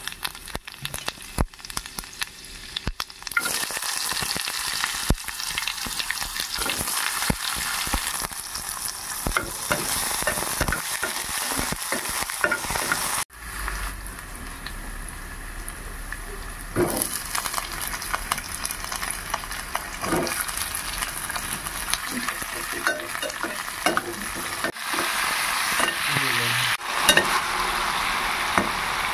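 Curry frying and sizzling in a pan, with a spatula stirring and scraping against the pan in many short clicks. The sizzle breaks off briefly about a third of the way through, then carries on.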